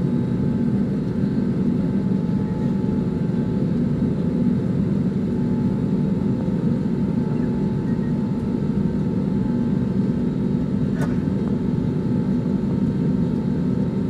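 Steady low drone inside a jet airliner's cabin from its engines at idle as it taxis to the gate, with a single short click about eleven seconds in.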